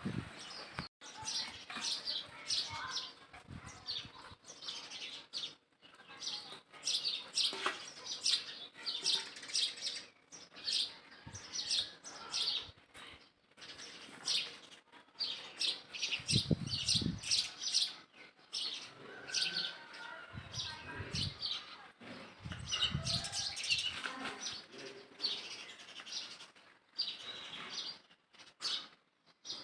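Small birds chirping, many short high chirps in quick runs, with a few low thumps along the way.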